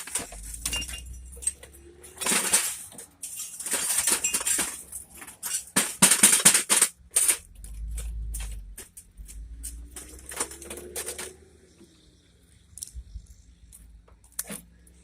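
Broken picture-tube glass and metal parts from a scrapped CRT television scraping, crunching and clinking while being handled, in a rapid string of sharp noises that thins out over the last few seconds.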